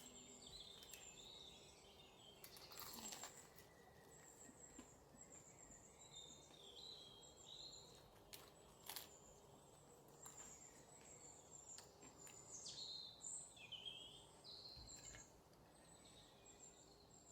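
Faint birds chirping in short, repeated rising and falling calls, with a couple of sharp clicks.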